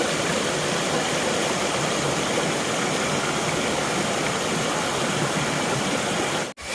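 Waterfall: a steady, even rush of falling water, broken for an instant near the end.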